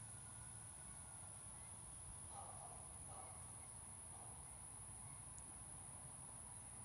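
Quiet outdoor ambience near silence: a faint steady high-pitched drone, like insects, with a few faint distant bird calls about two and a half seconds in.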